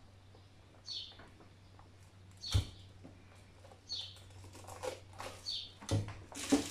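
Bar-type plastic heat sealer clacking shut twice on shrink film, each a sharp click with a low thump, amid light crinkling of the plastic. A bird chirps repeatedly in the background, a short high chirp about every second and a half.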